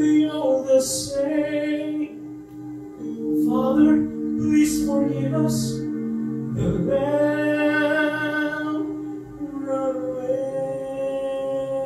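A man singing a slow gospel ballad through a microphone over a recorded accompaniment of held, sustained chords, with a long held note near the end.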